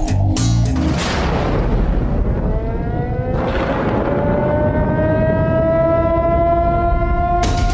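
Sound-effect bridge in a dance performance's backing track: a whoosh, then a low rumble under a siren-like tone that rises slowly in pitch. Beat-driven music with sharp hits starts again near the end.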